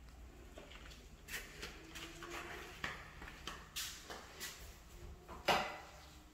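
Footsteps and handling knocks on a bare tiled floor: irregular clicks and taps, with one louder knock about five and a half seconds in.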